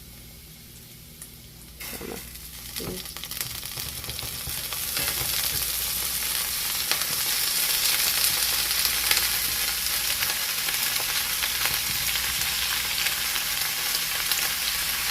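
Vegetables frying in a little oil in a pot with chopped onion. Faint at first, the sizzle jumps up about two seconds in as more goes into the pot, with a few knocks and stirring, then builds to a loud, steady frying sizzle.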